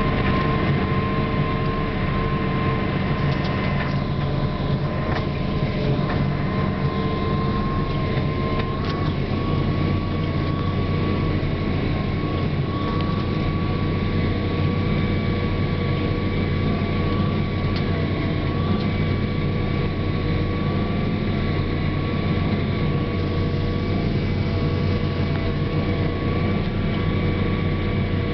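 Farm tractor's diesel engine running steadily under load, pulling a John Deere 510 disk ripper, with a steady whine over the engine note.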